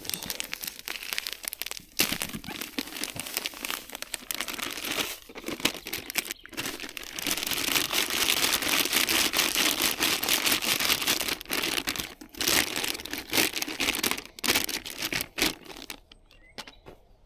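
Plastic groundbait bags crinkling and rustling as dry feeder groundbait is poured out and mixed by hand, the sound thickening into a continuous rustle in the middle and thinning out near the end.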